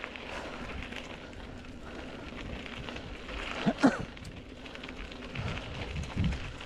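Mountain bike tyres rolling over a dirt trail strewn with dry leaves, a steady crackling rustle. A brief, loud pitched sound stands out a little past halfway through.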